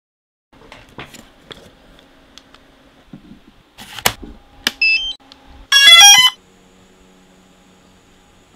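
A DJI Phantom 3 Standard quadcopter being handled and switched on: a few clicks, a short chirp about five seconds in, then a quick rising run of electronic startup beeps, the loudest sound. A faint steady hum follows.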